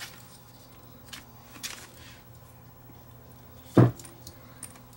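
Small clicks of metal alligator clips and test leads being handled and clipped onto a battery pack's wires, over a low steady hum. About four seconds in comes one loud, short thump.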